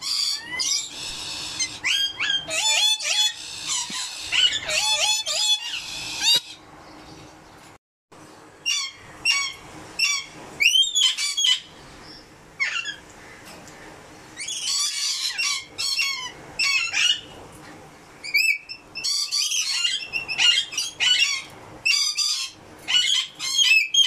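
Lorikeets giving shrill, screeching calls: quick runs of short rising and falling notes in several bouts, with short lulls between them.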